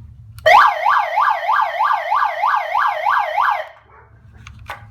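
Electronic police siren sounding through its speaker in a fast up-and-down wail, about three sweeps a second, for about three seconds before it cuts off.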